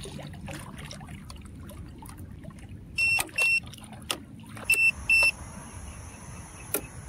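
Two pairs of short, high electronic beeps from a buzzer, about three and five seconds in, over a low steady background with scattered small clicks and one sharp click near the end.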